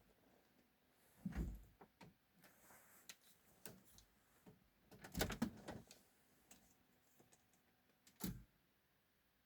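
A few scattered clicks and knocks of something being handled, the loudest about a second and a half in, a cluster around five seconds in, and one more just past eight seconds.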